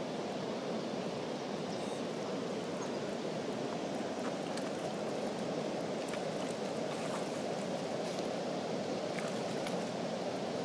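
Steady rush of flowing river water, with faint splashes in the second half as a hooked fish thrashes at the surface and is scooped into a landing net.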